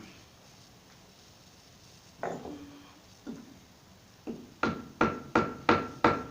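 Hammer blows on the generator's end frame while trying to knock it loose from the housing, where it is stuck at the seam. A few scattered knocks come first, then five quick strikes about three a second, each with a ringing metal tone.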